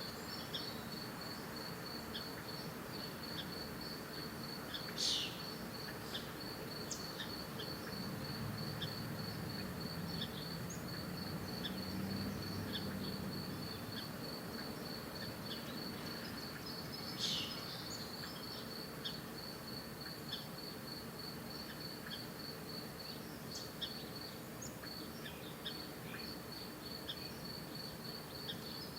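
A cricket chirping in a steady, even pulse at one high pitch, with two short, sharp bird calls sweeping downward, about five seconds in and again around seventeen seconds in, and scattered faint chirps. A faint low rumble swells in the background in the middle.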